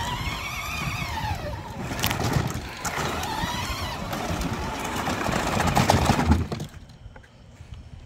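Electric drive motors of a remote-control fishing cart whining, the pitch rising and falling twice as the cart speeds up and slows, with knocks and rumble from its knobby tyres on the concrete sidewalk. The sound drops away near the end as the cart stops.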